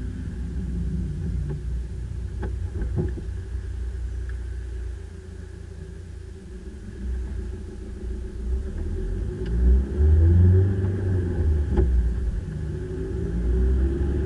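Low rumble of a car's engine and tyres heard from inside the cabin while driving, swelling louder about ten seconds in and again near the end, with a few faint clicks.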